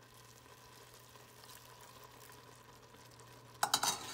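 Rice and broth simmering faintly in a stainless steel pot under a low steady hum. About three and a half seconds in, a wooden spoon stirs the risotto, scraping and knocking against the pot in a quick run of loud strokes.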